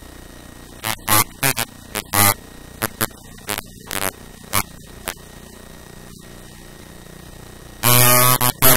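Irregular short bursts of harsh electronic buzz over a low steady hum, stuttering on and off through the middle, with a longer buzz near the end.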